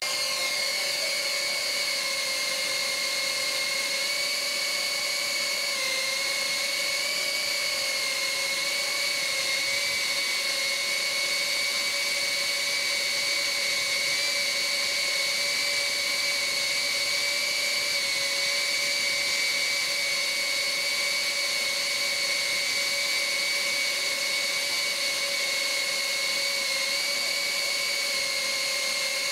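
Happymodel Mobula tiny-whoop FPV drone in flight, its small motors and propellers giving a steady high whine that barely changes pitch, with only slight wavers.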